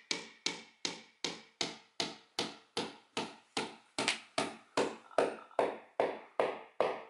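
Claw hammer tapping a nail into a painted wall in a steady run of about two and a half blows a second, each blow ringing briefly. The blows get harder about halfway through. It is not a normal noise for nailing into a wall.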